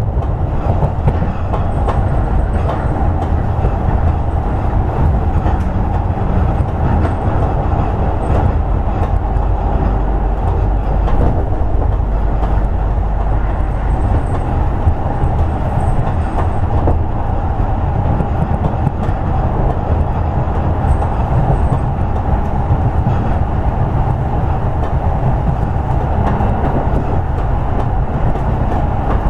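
Toei 10-300 series electric commuter train running steadily on the line, wheels on rail giving an even, unchanging rolling noise.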